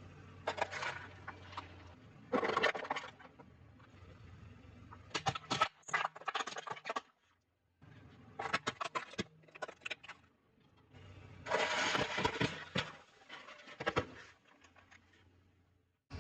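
Close-miked eating sounds: bites and chewing in bursts of crunching and clicking, a second or so each, with quieter pauses between.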